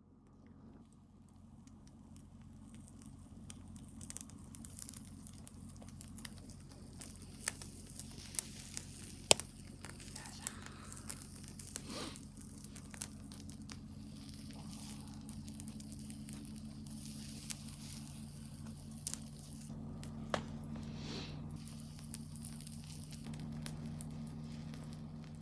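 Wood campfire crackling, with irregular sharp pops, the loudest about nine seconds in, over a steady low hum.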